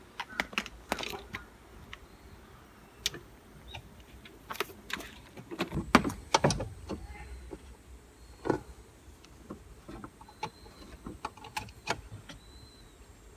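Scattered clicks and knocks of handling as a portable EV charger and its cable and plug are connected to a power inverter, with a couple of louder knocks about six seconds in.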